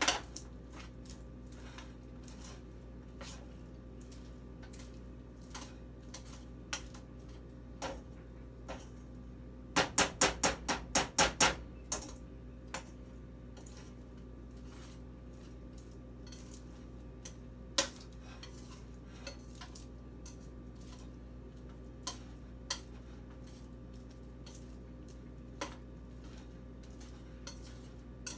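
A spoon stirring popcorn through a sticky Jell-O and sugar syrup in a large pan, giving scattered light clicks and scrapes against the pan. About ten seconds in there is a quick run of about eight sharper knocks, with a few single knocks later on. A faint steady hum runs underneath.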